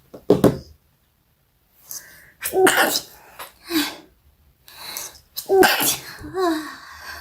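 A person sneezing over and over, several sneezes in a row with short gaps between them, set off by a tickly nose.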